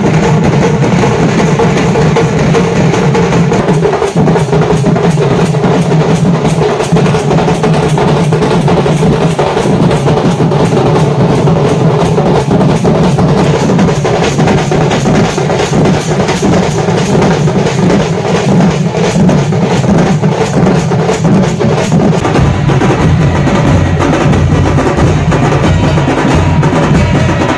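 A group of large barrel drums beaten hard with sticks in a fast, dense, continuous rhythm.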